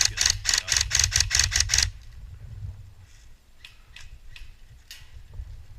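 Airsoft rifle firing a quick string of about ten shots, roughly five a second, lasting about two seconds. A few fainter single shots follow later.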